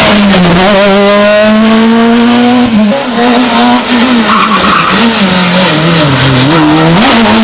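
Rally car engine running hard at high revs. Its pitch dips and climbs again about three seconds in and once more around six seconds.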